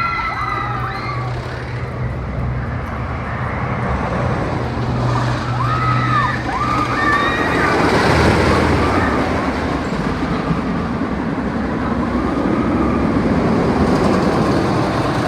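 Wooden roller coaster running: a steady low hum, then a rushing rumble that grows louder about eight seconds in, with a couple of short cries about six seconds in.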